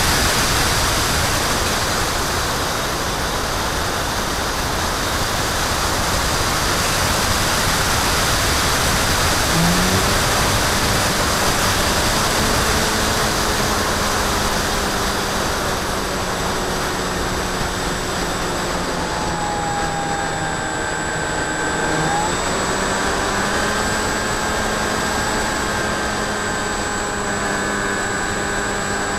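Onboard sound of a Phantom FX61 flying wing in flight: a steady rush of air over the airframe and camera, with the whine of its electric motor and pusher propeller. The motor's pitch drifts, then dips and rises sharply about three-quarters of the way through.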